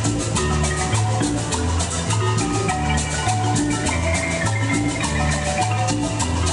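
Marimba ensemble playing a melody: many quick mallet notes on a large wooden marimba over a steady, repeating low bass line, with congas and a hand-held metal shaker keeping an even rhythm.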